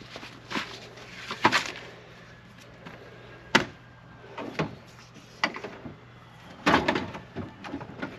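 A string of separate knocks and clunks as gear is handled and stowed in a storage compartment, the sharpest about three and a half seconds in, with a faint steady hum underneath.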